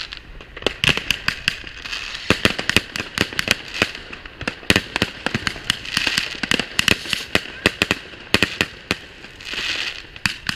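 Many fireworks going off at once: a dense, irregular run of sharp bangs and crackles from rockets bursting in the sky, often several to a second.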